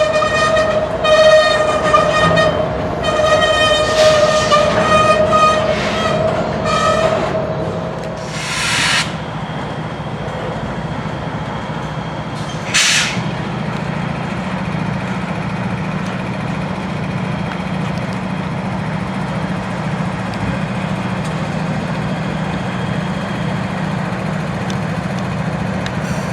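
Diesel locomotive horn sounding in a run of pulsing blasts that stop about seven seconds in. The locomotive's engine runs on steadily under it and afterwards, with two short bursts of hiss a few seconds apart.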